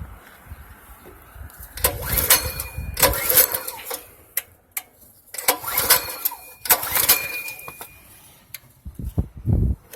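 Small gasoline engine of a hydro jetter being pull-started: two tries, each about two seconds of rattling cranking and sputtering, then stopping. A few low thumps follow near the end.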